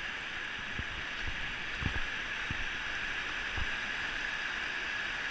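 Shallow river water rushing steadily over a rocky riffle, with a few soft low thumps.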